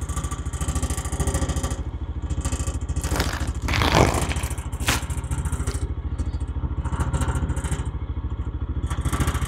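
Engine of the vehicle working the seed spreader, running steadily with an even pulsing beat, and a couple of short knocks or clatters about four seconds in.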